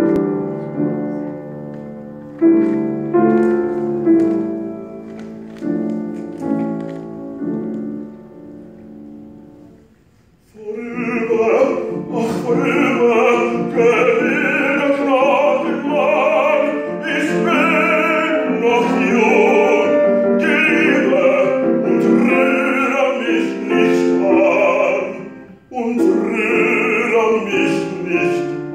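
Grand piano playing an introduction of separate chords that ring and fade, then about ten seconds in a man's classical singing voice comes in over the piano accompaniment, pausing briefly for breath near the end.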